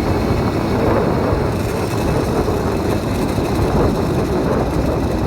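80cc motorized bicycle engine running steadily while the bike is ridden along.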